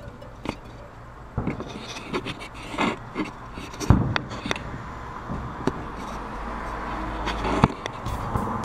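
Aerial fireworks shells bursting at a distance: a string of irregular bangs several seconds apart, the loudest about four seconds in.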